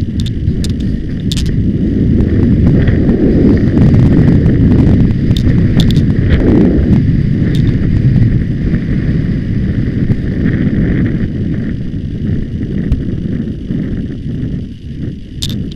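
Horse galloping on grass cross-country, heard from the rider's hat camera: a loud, even low rumble of wind on the microphone and hoofbeats, with a few sharp clicks.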